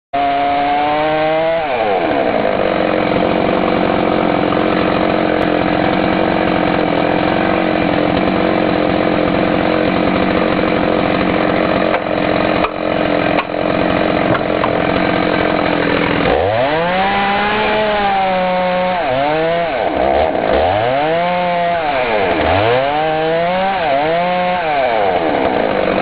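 Gasoline chainsaw cutting into a tree trunk. Its engine pitch drops about a second and a half in and holds steady under load, then from about two thirds of the way through it revs up and down several times.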